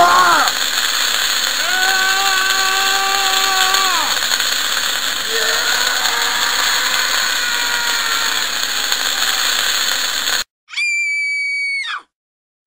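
Harsh, steady electrical buzzing of an interrogation-chair sound effect, with long wailing cries of pain over it. The buzz cuts off about ten seconds in, and two short, very high-pitched shrieks follow.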